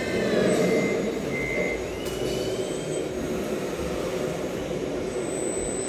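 Steady mechanical running noise of radio-controlled model vehicles, with two short high beeps about half a second and a second and a half in, and a faint rising tone a little later.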